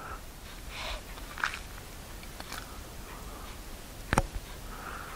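Faint steady hiss in a small room with soft breaths and two sharp mouth clicks, about a second and a half in and again about four seconds in, from a man pausing between sentences of his narration.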